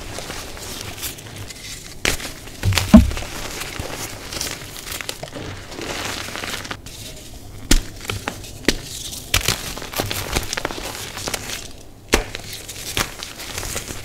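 Hands crushing and crumbling blocks of dyed gym chalk: dry, powdery crunching with many sharp snaps as pieces break apart, and a heavier thump about three seconds in.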